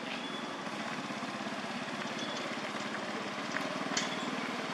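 A small engine running steadily at idle, a low even drone with a fast pulse, with one short click about four seconds in.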